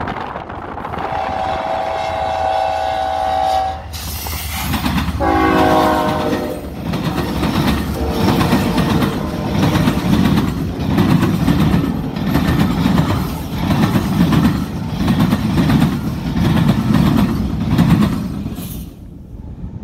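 Diesel locomotive air horn blowing a long chord, then a second blast at a lower pitch as the lead units pass. A consist of ten diesel locomotives running light, with no cars, then rolls by close up: engine drone and rhythmic wheel clatter.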